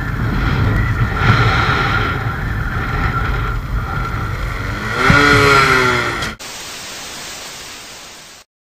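Motorcycle on the move: wind rush on the microphone over the engine's low drone, with a pitched sound that rises and then falls about five seconds in. It cuts off suddenly into a hiss of TV static that fades away, then silence.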